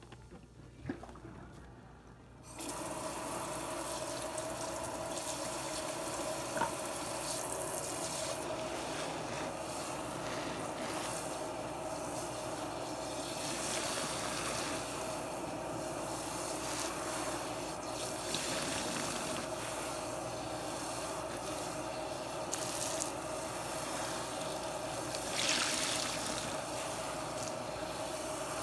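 Kitchen sink sprayer switched on about two and a half seconds in, then water spraying steadily into a sink full of suds, a steady hiss with a faint steady tone under it.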